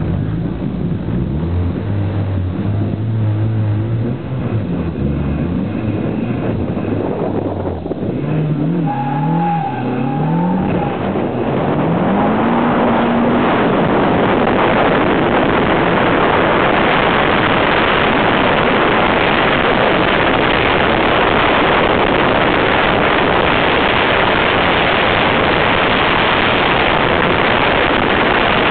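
Mazda Miata's four-cylinder engine heard from inside the car, first running steadily at low revs, then revving up in rising, stepping pitch sweeps. From about twelve seconds in, a loud, steady rushing noise drowns out the engine.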